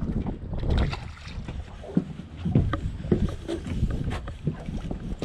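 Small waves slapping irregularly against the fiberglass hull of a drifting boat, with an occasional knock.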